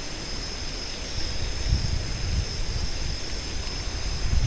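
Strong wind gusting and buffeting the microphone: a low, uneven rumble that surges a few times, over a steady high hiss.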